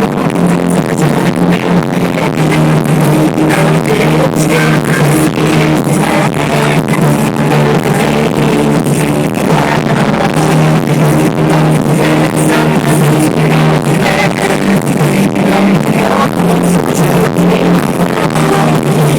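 Live pop-rock band music played loud, with a steady drum beat and sustained bass notes.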